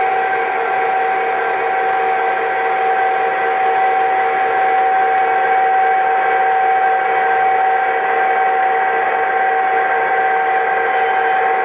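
Lionel F3 O-gauge model diesel locomotive running steadily along three-rail track: a continuous hum of its motors and gearing and its wheels on the rails, mixed with the locomotive's onboard diesel engine sound effects, with a strong held tone throughout.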